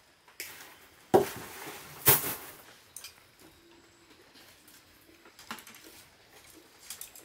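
Two sharp metallic snaps about a second apart, each with a short ringing tail, as pliers cut electrical wire from a coil; a few faint clicks follow.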